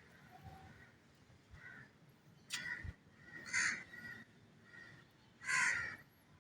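A bird calling outdoors: three loud, harsh calls spread over about three seconds, with fainter calls between them.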